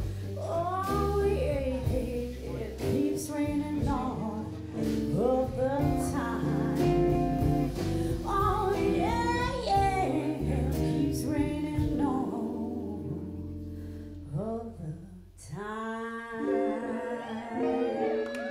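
Live band playing: a woman singing over electric guitar, electric bass and drum kit. The music thins out briefly a little past halfway, then the band comes back in.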